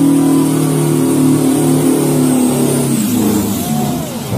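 Semi truck engine held at high revs during a tyre-smoking burnout, a loud steady note. About three seconds in, the revs drop and waver.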